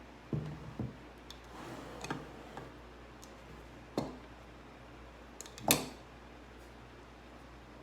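Someone starting to eat: a handful of separate sharp clicks and knocks from utensils and bites, the loudest near the end.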